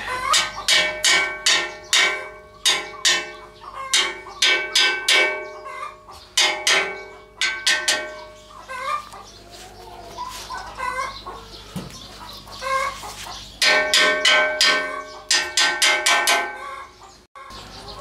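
Hammer blows on the steel of an iron buffalo tractor's cage wheel, knocking a new cleat down into place. The blows come in quick runs of ringing strikes, about three or four a second, with a gap of several seconds in the middle. Chickens cluck in the background.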